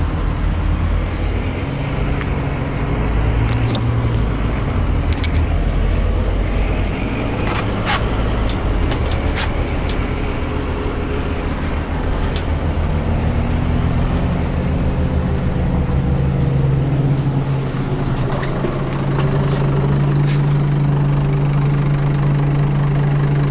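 Scania CN270UB city bus heard from inside the passenger cabin while driving: a continuous low engine drone with sharp rattles and clicks from the bus body about eight to ten seconds in. The engine note grows louder and steadier in the last few seconds.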